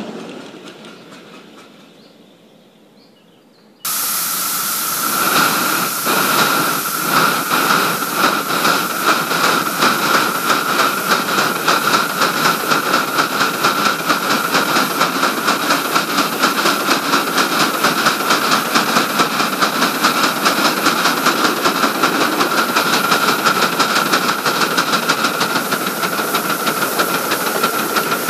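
Live-steam 5-inch-gauge model locomotive. A passing train fades away over the first few seconds. After a sudden cut, loud steam hiss runs with a steady beat of chuffs, about two to three a second.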